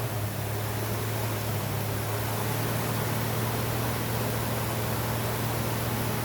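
A rebuilt 350 small-block Chevy V8 running steadily, with an even hum and a hiss over it.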